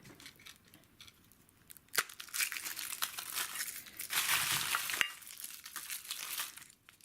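Packaging from a surprise egg crinkling and tearing as it is opened, with a sharp click about two seconds in and another near the end, after a quiet start.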